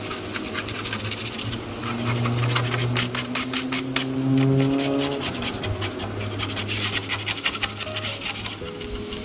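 Sandpaper rubbing by hand over the old paint of a Proton Wira spoiler in quick, repeated scratchy strokes. A country song with held notes plays underneath.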